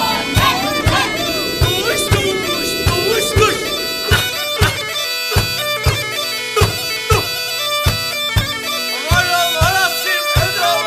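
Instrumental passage of a Turkish Black Sea folk song: a bagpipe playing an ornamented, wavering melody over a steady drum beat of about two strokes a second.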